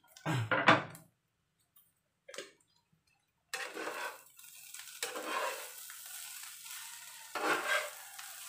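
Fried rice sizzling in a nonstick frying pan as a metal spatula stirs and scrapes it in slow strokes, one about every second and a half to two. Before the stirring starts, there are a couple of loud knocks about a second in, then a short silent gap.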